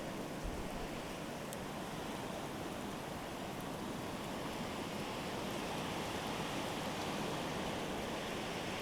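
Steady hiss of nor'easter wind in a snowstorm, swelling a little past the middle.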